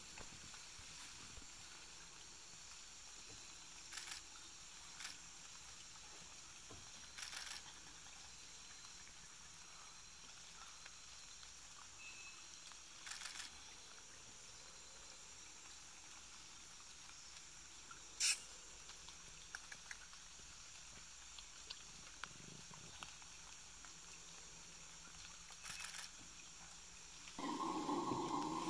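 A faint, steady high-pitched drone of rainforest insects, broken by a few short clicks. Near the end a loud, rough, low roar starts: the call of a red howler monkey.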